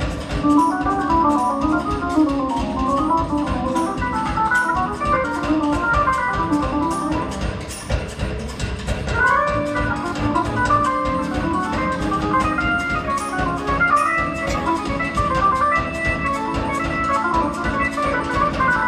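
Live jazz-fusion band playing: a keyboard solo in an organ sound, fast runs of short notes over a steady drum beat and bass.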